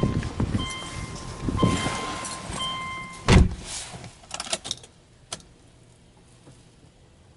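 Subaru Legacy B4's warning chime beeping steadily while the driver's door stands open with the key in the ignition, then the door shut with a heavy thud about three and a half seconds in. A few light clicks follow as the ignition key is turned on, then it goes quiet.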